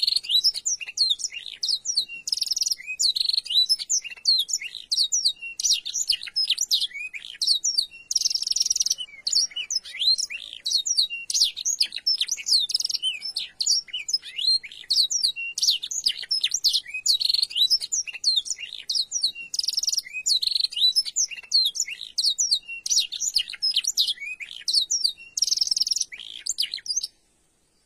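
Domestic canary singing a long, unbroken run of fast chirps, whistles and trills; its song is filled with phrases learned from the black-throated canary (blackthroat). It stops abruptly near the end.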